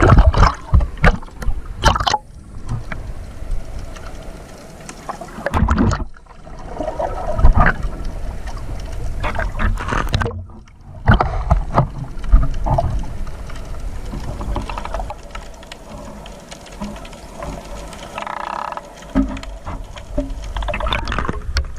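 Sea water sloshing and splashing around a swimmer treading water, with wind rumbling on the microphone. The sound breaks off briefly three times.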